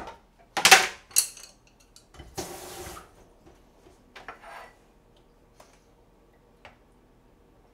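Clip-lock plastic food container being unclipped and opened: sharp plastic clacks and snaps in the first second and a half, then a short scraping noise about two and a half seconds in, followed by a few softer knocks.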